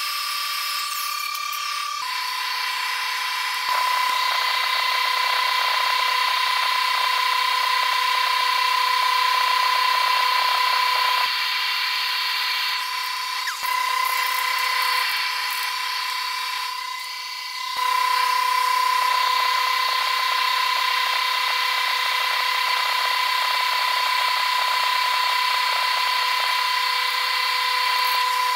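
Small handheld electric grinder running on the end of a steel pipe, a steady high whine that drops slightly in pitch about two seconds in and stops briefly about two-thirds of the way through before starting again.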